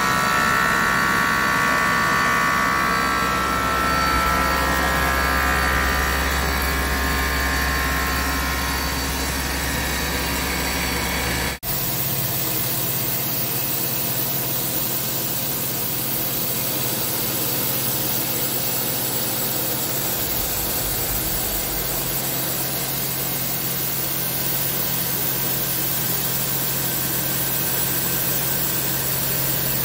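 Vertical CNC turning lathe running, a steady machine hum with a higher whine over it. About a third of the way in the sound changes abruptly to a steadier, lower hum.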